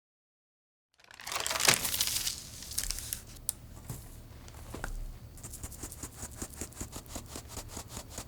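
Crinkling, tearing rustle of packaging or paper being handled, followed by a run of quick light clicks, about four a second.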